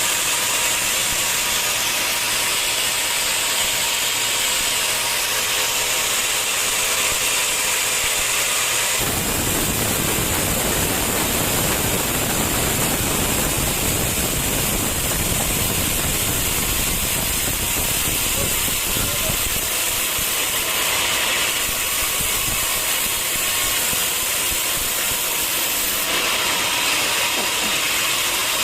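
Sawmill machinery running with a steady hiss. A deeper rumble joins about nine seconds in and fades out near the end.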